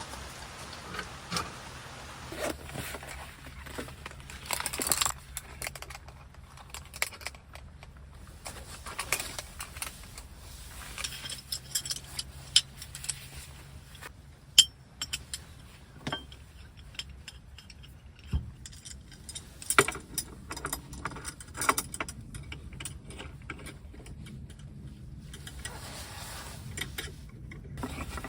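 Scattered light metallic clinks, rattles and knocks of small gear being handled, over a steady low background noise.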